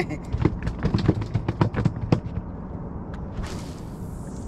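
A quick run of sharp knocks and slaps, about ten in two seconds, as a freshly caught white bass is handled and unhooked on a boat; a brief rushing hiss near the end over a steady low rumble.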